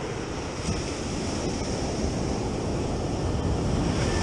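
Ocean surf washing onto a sandy beach, a steady rushing noise, with wind rumbling on the microphone; it grows slightly louder toward the end.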